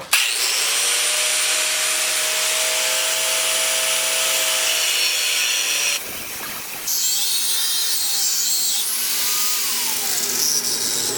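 Power tool cutting into a bar of 1045 medium-carbon steel with a steady, hissing metal-on-abrasive noise. It stops for about a second near the middle, then starts again, with its pitch sagging briefly under load later on. The work heats the steel until it is too hot to hold.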